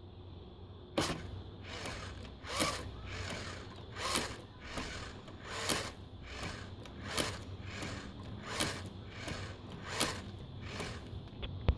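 Savox servo clicking: short sharp mechanical bursts, about one every one and a half seconds, as the servo moves repeatedly.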